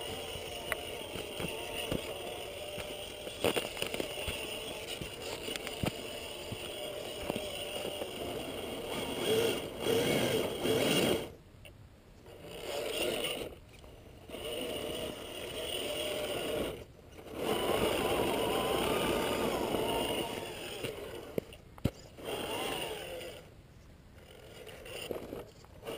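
RC scale crawler's brushed electric motor and geared drivetrain whining as it crawls over rock, the pitch rising and falling with the throttle. In the second half the throttle is let off and reapplied several times, so the whine stops and starts again in short bursts.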